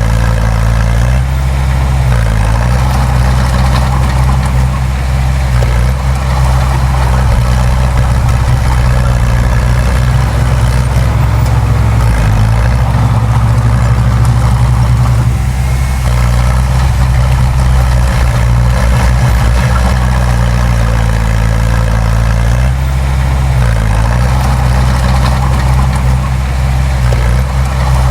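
Heavy diesel engine of earthmoving machinery running steadily at work. The engine note dips and shifts briefly about a second in, around the middle and again a few seconds before the end.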